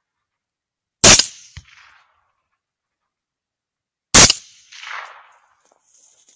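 Two rifle shots about three seconds apart, each a sharp crack with a short fading echo. A faint thump follows about half a second after the first shot.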